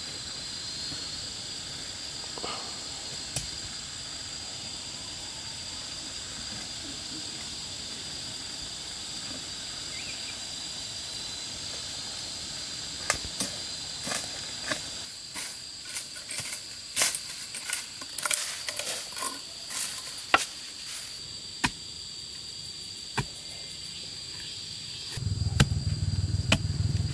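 Insects keep up a steady high drone while, from about halfway, a digging tool strikes and scrapes into soil in a run of irregular sharp knocks as bamboo shoots are dug out. Near the end a louder low rumble comes in.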